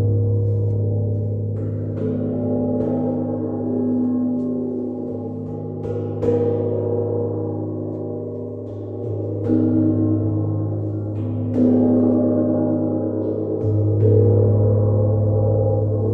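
Gong struck softly and repeatedly, a fresh stroke every second or two, keeping up a continuous, swelling ring of deep tones and shimmering overtones.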